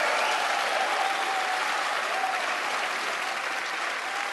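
Large audience clapping steadily.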